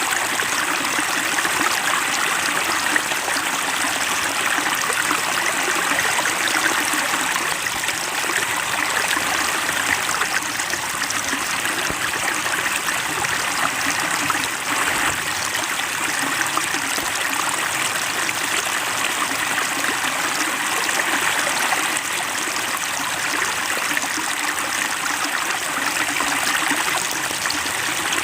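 Water flowing and trickling steadily, a small stream babbling over stones.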